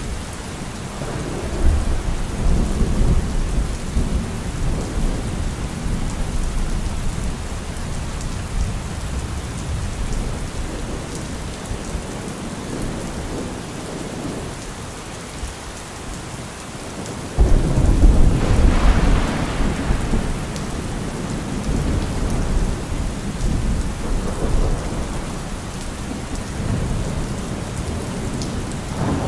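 Steady rain with rolling thunder: a long rumble begins about two seconds in, and a sudden, louder thunderclap just past halfway rumbles on for a few seconds before fading back under the rain.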